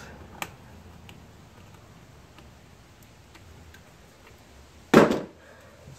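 Light clicks of pliers and a hose clamp on the vapour hose of a Mazda Miata's charcoal canister, then one sharp loud snap about five seconds in as the hose is pulled off the canister's nozzle.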